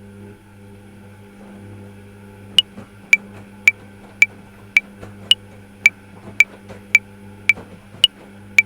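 A metronome starts clicking about two and a half seconds in, at 110 beats per minute in 5/4 time, with the first beat of each bar higher in pitch than the other four. Under it runs a low steady hum.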